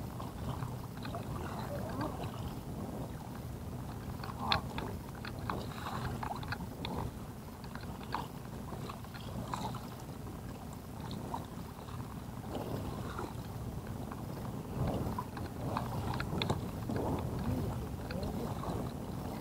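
A small fishing boat on open water: a steady wash of water and wind, with scattered light clicks and knocks from the rod, reel and boat as a hooked fish is reeled in.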